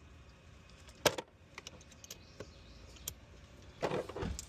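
A string of sharp clicks and light knocks from keys and hard plastic and metal parts being handled: one loud click about a second in, a few lighter ticks, then a short cluster of knocks near the end.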